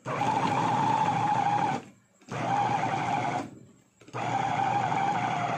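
Electric meat mincer (bowl-type food processor) motor pulsed three times, each run a steady whirring whine as the blades chop meat, cutting off sharply between runs. It is working a heavy load of about 700 grams, more than this light-duty machine is comfortable with.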